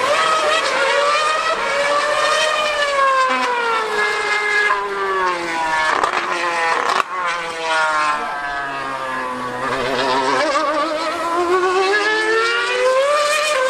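Mercedes 2013 Formula 1 car's 2.4-litre naturally aspirated V8 screaming at high revs as it laps the circuit. The engine note climbs, falls away for several seconds, then climbs again near the end.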